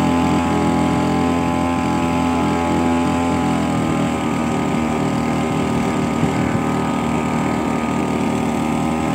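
Homemade boat outboard built from a grass-cutter engine and a grinder gear head, running steadily under way with a small wooden boat. Its pitch dips slightly about four seconds in, then holds.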